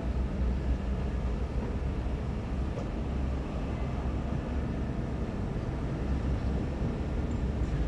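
Heavy diesel engines of excavators and dump trucks running steadily, a low even engine noise, with a faint knock about three seconds in.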